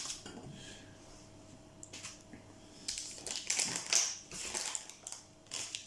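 A plastic-packed tackle item dropping into a cardboard box with a short knock, then plastic packets crinkling and rustling in short bursts from about three seconds in as more tackle is handled.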